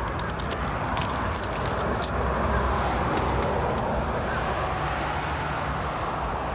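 2006 Dodge Charger's engine running steadily with a rod knock, the sign of a worn connecting-rod bearing. Sharp ticks come through during the first two seconds.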